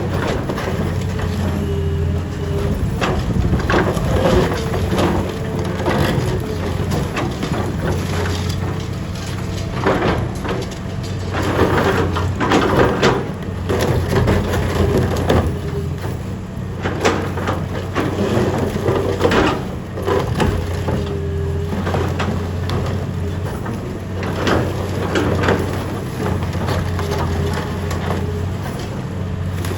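Excavator crushing concrete: irregular cracking and crunching of breaking concrete, over the steady low hum of the machine's diesel engine.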